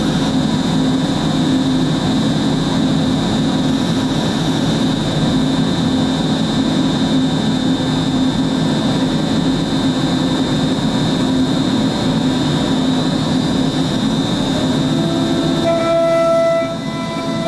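MultiCam 5000 Series CNC router running with a steady, loud mechanical drone. Near the end, as the gantry and spindle travel over the table, a higher steady whine joins in.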